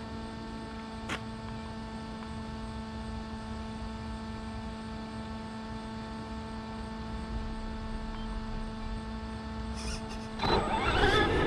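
A steady, even hum with a single click about a second in. Near the end a Traxxas Slash 2WD RC truck's electric motor spins up with a whine rising in pitch, along with louder rolling noise as the truck pulls away.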